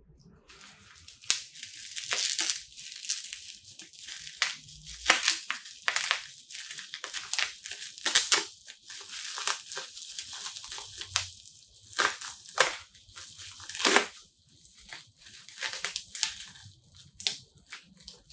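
Plastic bubble wrap crinkling and tearing as it is cut with a folding knife and pulled away from a small box, in an irregular stream of rustles and sharp crackles.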